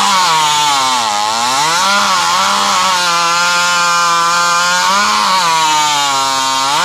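Modified two-stroke racing chainsaw cutting through a thick timber beam at full throttle. The engine pitch sags and recovers as the chain loads up in the wood, holds lower and steady through the middle of the cut, then climbs sharply near the end as the chain clears the cut.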